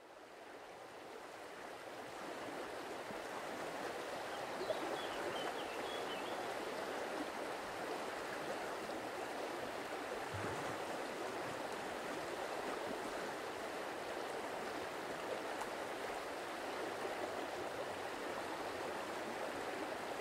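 Steady rushing water ambience that fades in over the first couple of seconds, with a few faint high chirps about five seconds in.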